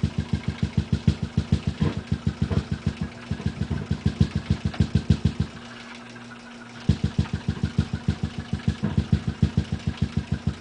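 Rhythmic low popping, about six pops a second, over a steady low hum; the popping stops for about a second midway, then starts again.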